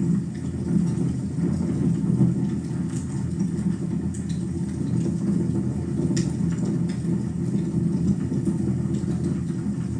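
Fire burning in a fireplace: a steady low roar from the flames, with a few sharp crackles scattered through.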